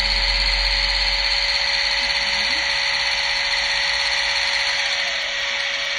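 Märklin Gold Crocodile model locomotive running slowly along the track, its electric motor giving a steady high-pitched whine.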